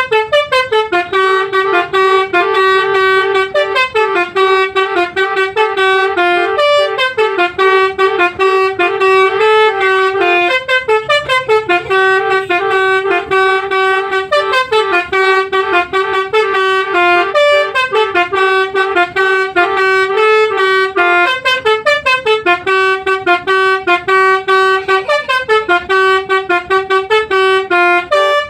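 A bus's Basuri V3 telolet musical horn playing a loud, repeating multi-note melody. Its notes step up and down and its phrases slide downward, with no pause.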